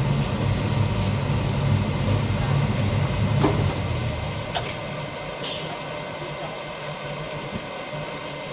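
Industrial shirt-pressing machine with pneumatic actuators: a steady low hum stops about four seconds in, a couple of clicks follow as the parts set, and a short sharp hiss of air comes about five and a half seconds in.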